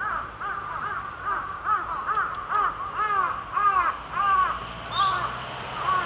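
A bird calling: a series of about a dozen short, arched call notes, roughly two a second, loudest in the middle and spacing out toward the end.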